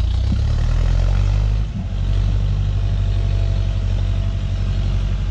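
Renault 651 tractor engine running hard under load, towing a tipping trailer on icy ground where its wheels are spinning. The engine note drops about two seconds in, then runs steadily.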